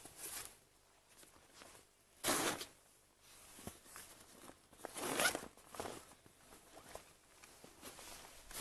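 A few short, scattered crunching and rustling noises close to the microphone, a few seconds apart. The loudest comes about two seconds in and another about five seconds in.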